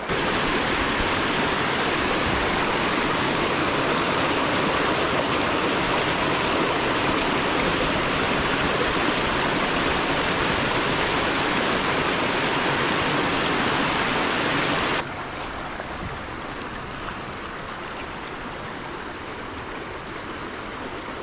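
A small rocky creek rushing over riffles and little cascades, a steady loud rush of water. About fifteen seconds in it drops suddenly to a softer, quieter flow.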